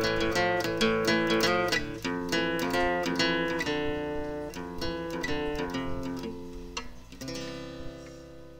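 Acoustic guitar music with quick picked and strummed notes, fading out gradually toward the end.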